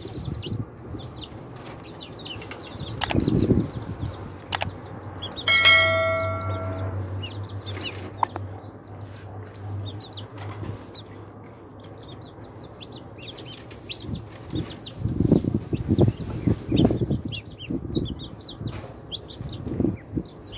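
Chicks and ducklings peeping, many short high chirps throughout. A bell-like tone rings once about five and a half seconds in and fades over a second or so, and a few low thuds come near three seconds in and again later.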